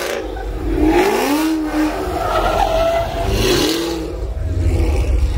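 A car engine revving hard over and over, its pitch rising and falling several times, with tyres squealing.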